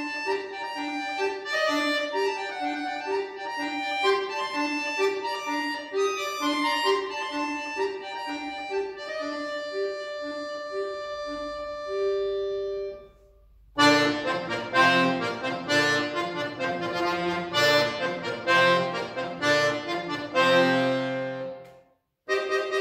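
Solo chromatic button accordion playing: a light passage of short repeated notes under a melody, closing on a long held chord. After a pause of about a second, a loud passage of full chords with deep bass begins, breaking off briefly near the end.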